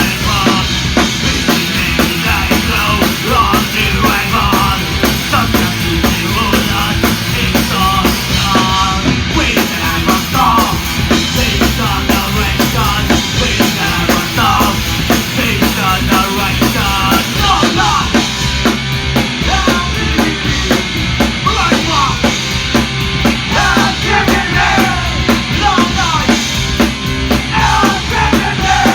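Punk rock music, loud and steady, with a driving drum kit.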